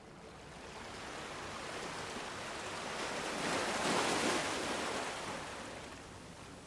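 Small ocean waves washing in. One swell builds to its loudest about four seconds in, then eases off.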